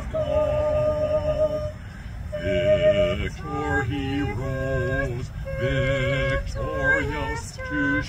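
A woman and a man singing a slow song together, in phrases with long held notes and vibrato.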